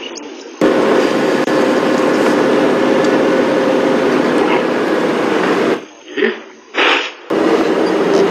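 Open safari vehicle on the move: engine running with rumble and wind noise on the microphone. It starts suddenly about half a second in, drops out briefly near six seconds and comes back near seven.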